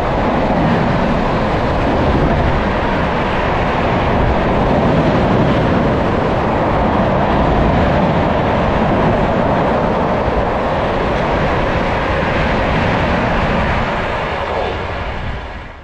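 Passenger train coaches rushing past at high speed: a loud, steady roar of wheels on rail and air, easing off near the end as the last coach goes by.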